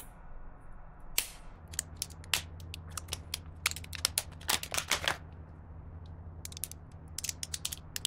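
The plastic case of a Dynon SkyView backup battery pack being cut open by hand, giving irregular clicks, cracks and snaps of plastic.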